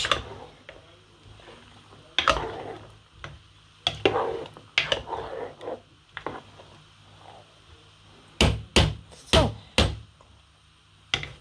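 Kitchen utensils knocking against a metal cooking pot: scattered clatter, then four sharp knocks in quick succession, and one more near the end.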